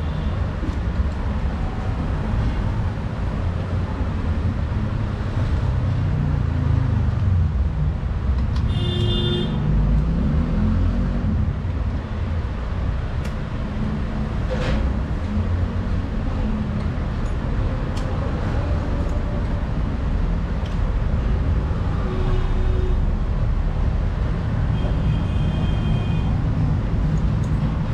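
Passing road traffic makes a steady low rumble, with short vehicle horn toots: a clear one about nine seconds in and two fainter ones near the end.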